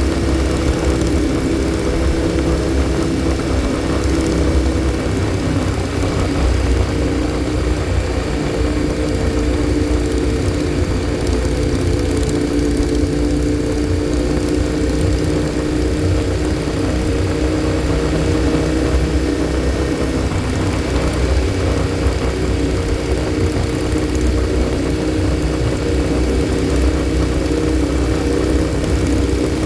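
Motorcycle engine running at a steady cruising speed, a continuous drone, with heavy wind rumble on the microphone.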